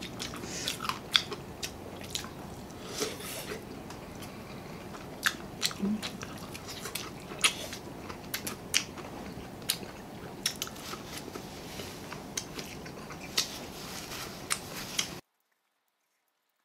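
A person chewing and biting into sauce-coated fried chicken, with irregular sharp clicks of mouth and teeth over a steady low hiss. The sound cuts off abruptly to silence about fifteen seconds in.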